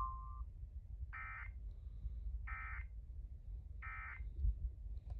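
Emergency Alert System end-of-message data signal: three short, identical bursts of digital modem tones, evenly spaced, marking the end of the weather warning broadcast.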